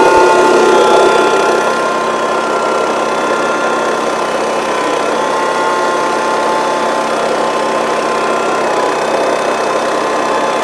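Sawmill's engine running steadily at a constant speed, louder and rougher for the first second and a half before settling to an even run.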